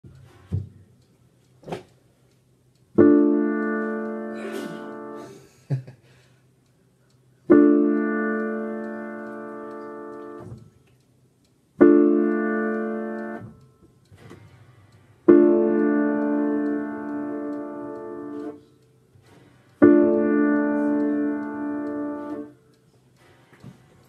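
Piano-style keyboard playing five slow chords, each struck and left to fade for two to three seconds before the next, with short gaps between. A faint low hum runs underneath, and a few small clicks fall in the gaps.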